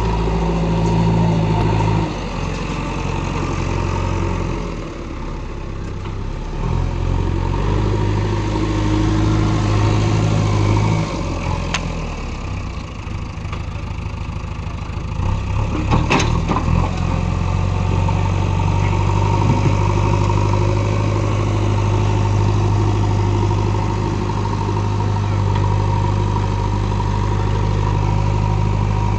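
JCB backhoe loader's diesel engine running while working a field, its engine speed stepping up and down repeatedly. A sharp knock about halfway through.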